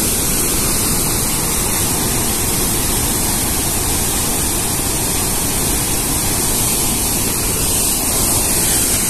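Devi's Fall (Davis Falls), the outflow of Phewa Lake, pouring into its gorge in heavy flow: a loud, steady rush of falling water.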